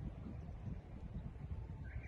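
Outdoor ambience: an uneven, gusty low rumble of wind buffeting the microphone, with a short high chirp near the end.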